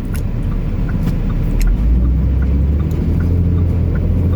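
Road noise inside a moving car: a steady low rumble from the tyres and engine.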